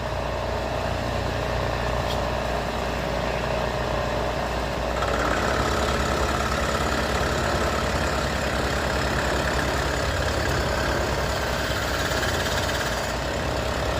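Bridgeport vertical milling machine running, its end mill cutting away the stripped thread in a swingarm's chain adjuster. About five seconds in, a higher whine joins the steady motor hum and the sound gets a little louder as the cutter bites harder.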